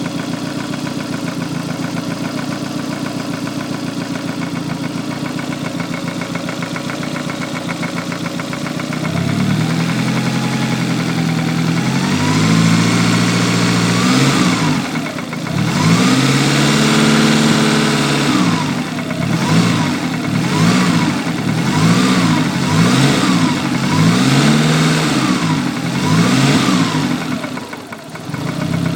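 Lancia Delta Integrale 16v's turbocharged 2.0-litre four-cylinder engine idling steadily, then revved up and held, then blipped in a quick series of rises and falls before dropping back to idle. It carries a noise the owner cannot place, asking whether it is rod knock, the crankshaft or the valves.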